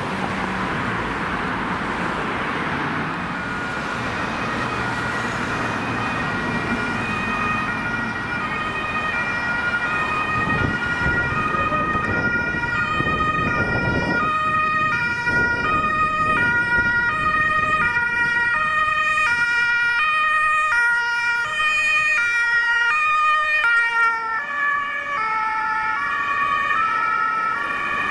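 Road traffic and a departing fire engine, then several German two-tone emergency sirens (Martinshorn) approaching on ambulance and fire-service vehicles. The sirens overlap at different pitches and grow louder and clearer from about halfway.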